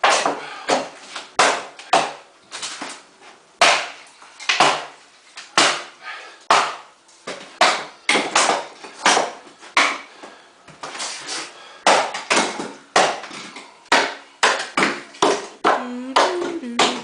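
Sledgehammer blows knocking apart a wood-framed wall of studs, insulation and cedar siding, struck over and over about one to two times a second.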